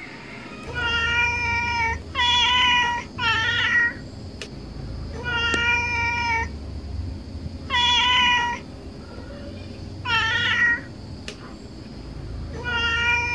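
A cat meowing seven times, short high-pitched meows spaced one to two seconds apart.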